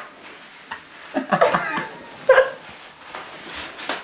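Brief murmured voices and a short laugh over a low rustling hiss in a small tiled room.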